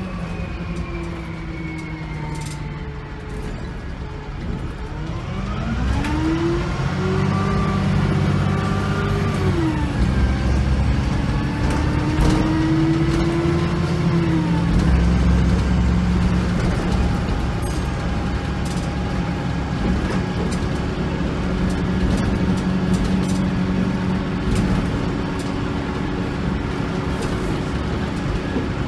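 VDL SB200 Wright Commander single-decker bus heard from inside the saloon. The engine and transmission note falls as the bus slows, then whines upward as it pulls away, dropping and climbing again twice about ten and fifteen seconds in, before settling to a steady cruise.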